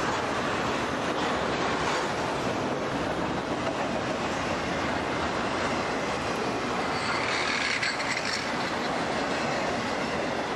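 Freight train of enclosed autorack cars rolling past, a steady noise of steel wheels on the rails. A brief high wheel squeal rises out of it about seven seconds in.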